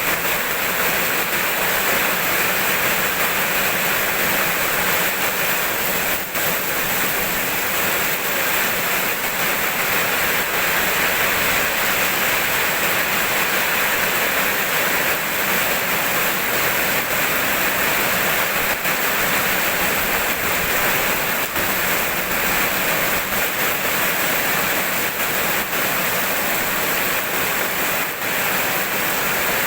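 Steady rainfall: a dense, even hiss of falling drops that holds unchanged throughout.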